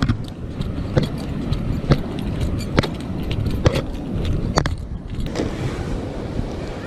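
Wind buffeting the microphone over the low rumble of surf, with a series of sharp clicks or taps roughly once a second.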